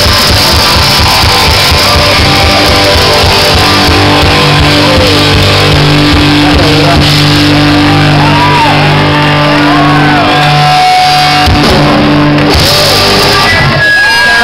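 Rock band playing live and loud, guitars and drums with shouted vocals. In the second half a low chord is held and rings under bending, wavering notes, and the cymbal wash cuts off about twelve seconds in.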